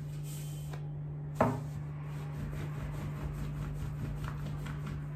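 Long, thin wooden rolling pin (oklava) rolling and rubbing over a sheet of baklava pastry on a wooden board, with one sharp knock about a second and a half in. A steady low hum runs underneath.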